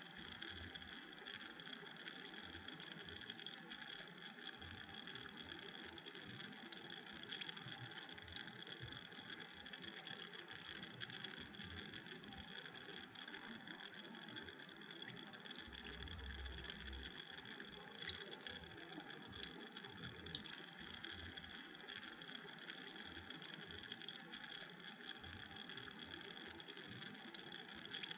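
Carbonated drink fizzing: many tiny bubbles bursting at the surface in a steady crackling hiss.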